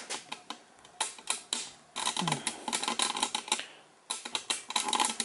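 Chainsaw chain being pulled by hand along its bar, the links clicking in rapid, uneven runs with a short pause about four seconds in; the chain is stiff and catching on something.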